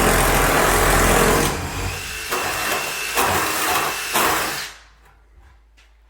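Power drill running in several bursts while drilling for a door handle, then stopping about four and a half seconds in.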